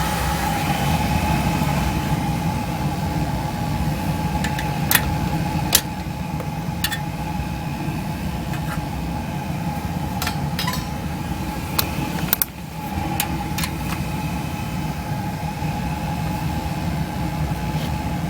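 Beckett oil burner firing on a boiler: a steady running noise of burner motor, fan and flame with a low hum and a constant whine, broken by several sharp clicks.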